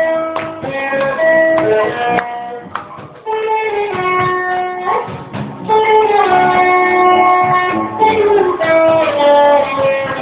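A band playing music: a melody of held notes, sliding between some of them, over plucked guitar accompaniment.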